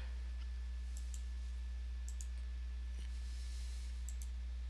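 Computer mouse clicking: three quick pairs of sharp clicks, about one, two and four seconds in, over a steady low electrical hum.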